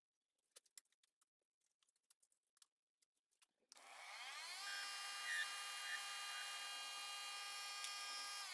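A few light metal clicks as the workpiece is handled in the chuck, then a small benchtop metal lathe starts about two thirds of the way in: its motor whine rises in pitch as the four-jaw chuck spins up, then runs steady.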